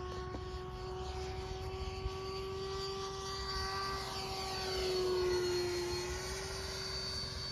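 Electric ducted fan of a Freewing F-5 Tiger RC jet, fitted with a 12-blade fan, flying past as a steady hum with a thin high whine above it. It grows loudest about five seconds in as it passes, and the pitch drops slightly. It sounds sickly, which the owner puts down to a 12-blade fan that does not work with this motor.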